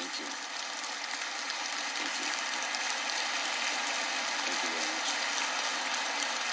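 Audience applauding: a dense, even clatter of many hands that swells over the first couple of seconds and then holds steady.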